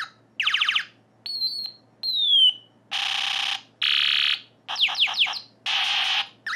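A circuit-bent toy ray gun playing its default electronic sound effects through its small speaker, one for each trigger pull, with the tilt switch not engaged. About eight short effects follow in quick succession: buzzes, a high beep, a falling laser zap and a run of quick falling chirps.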